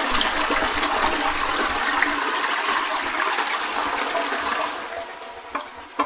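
Toilet flushing: a rush of water that runs strong for about four seconds and then fades away, with a couple of small knocks near the end.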